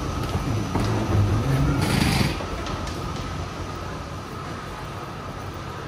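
Railway station background noise: a steady hum and rumble with a short hiss about two seconds in.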